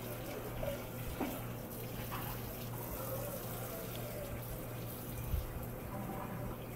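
Running water, a steady hiss that thins out about six seconds in, over a low constant electrical hum.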